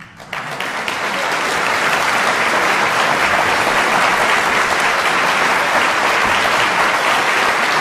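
Audience applauding: the clapping starts suddenly just after the music ends and quickly builds to a dense, steady applause.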